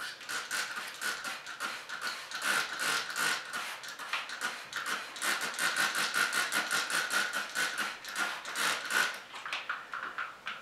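Hand-pumped plastic trigger spray bottle squirted rapidly over and over, several short hissing sprays a second, with a thin steady high squeal running underneath; it is misting a detergent and washing-soda solution onto a dinner plate.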